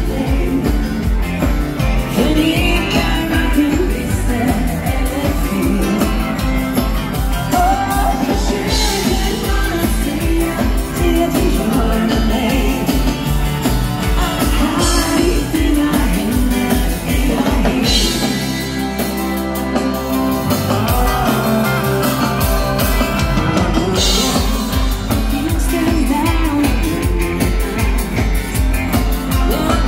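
Live dansband music: a woman singing with drums, bass and keyboards at a steady dance beat. The drums and bass drop out briefly about two-thirds of the way through, then come back in.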